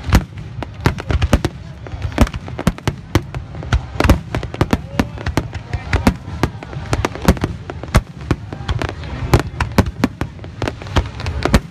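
Fireworks display: aerial firework shells bursting in a rapid barrage, several sharp bangs a second over a continuous low rumble.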